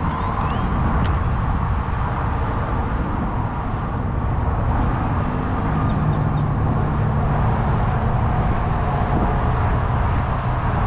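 Steady background rumble of road traffic.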